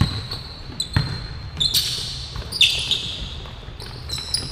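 Basketball bouncing on a court floor, a couple of hard bounces about a second apart, with short high-pitched squeaks of sneakers on the floor in the middle.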